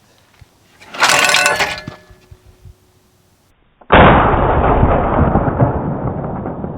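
A foot-operated clay target thrower releases with a metallic clatter about a second in. About four seconds in a shotgun fires once, very loud, and the blast echoes and dies away slowly.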